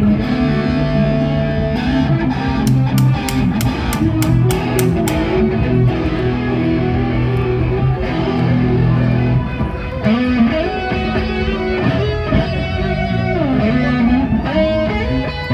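Amplified band playing: electric guitar over bass notes, with sharp cymbal hits through the first few seconds, then guitar lines with bent, gliding notes.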